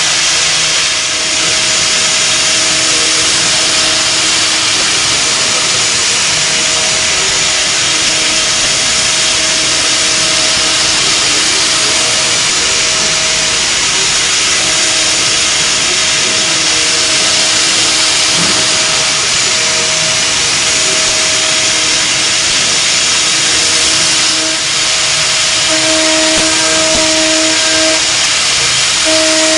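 CNC milling machine cutting metal with an end mill: a steady hissing cutting noise with a whine that fades in and out and grows stronger near the end.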